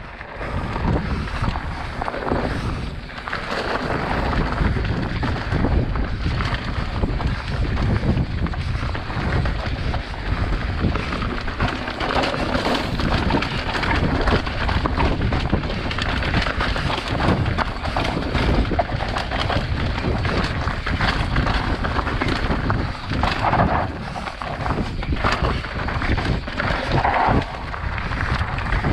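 Mountain bike riding fast down a rocky dirt singletrack. The tyres crunch over gravel and loose stones, and the bike knocks and rattles constantly, over a low rumble of wind on the microphone.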